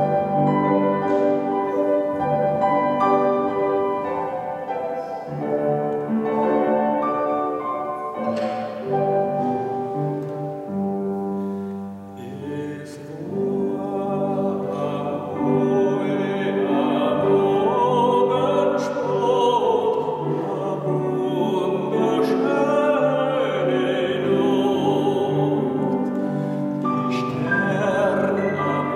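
Grand piano playing an introduction. About halfway through, a man's singing voice with vibrato comes in over the piano accompaniment.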